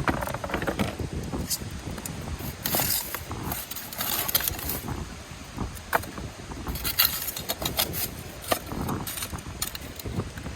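Wind rumbling on the microphone, with scattered sharp clicks and short rustling sounds of gear being handled.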